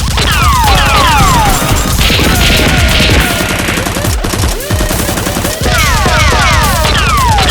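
Rapid automatic gunfire sound effect: a dense, steady rattle of shots. Groups of falling whistling tones sweep down over the first second and again in the last two seconds.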